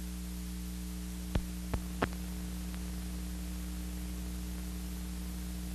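Steady mains hum and hiss from an old newsreel film soundtrack, with three sharp clicks close together about a second and a half in, typical of film surface noise.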